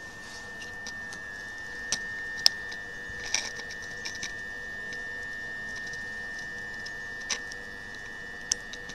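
Steady high-pitched whine from a standing Southeastern Electrostar electric train's electrical equipment, with a fainter lower hum beneath. A handful of sharp irregular clicks sound over it.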